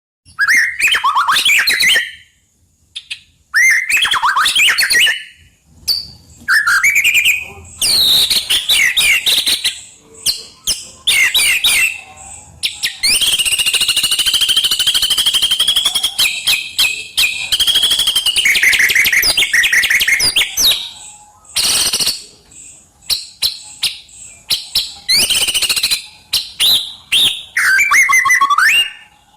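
White-rumped shama (murai batu) singing: loud, varied phrases of clear whistles, sweeping notes and rapid trills, broken by short pauses, with one longer unbroken run of quick notes near the middle.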